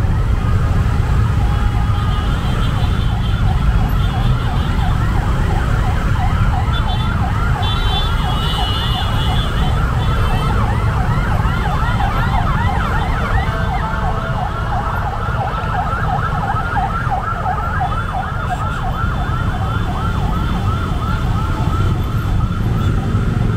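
Emergency vehicle siren wailing in a fast yelp, its pitch sweeping up several times a second without a break, over a steady low rumble.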